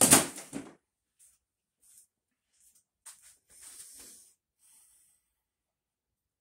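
A short, loud rustling noise at the very start, then light scrapes and clicks as a hand handles metal parts on the hub of a 1964 Johnson 3 hp outboard's flywheel, about three to four seconds in.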